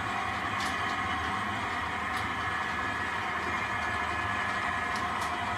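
H0-scale model train, a diesel locomotive hauling freight wagons, running along the layout's track with a steady hum and whine. A few short clicks sound through it.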